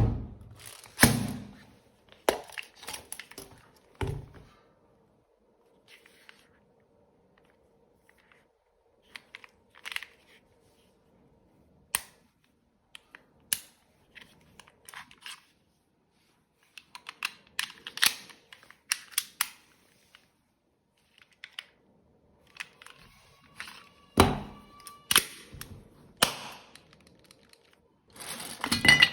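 Toy Browning M1910 gel blaster pistol being handled and worked: a series of sharp mechanical clicks and clacks with quiet gaps between them, the loudest about a second in, about 24 seconds in and near the end.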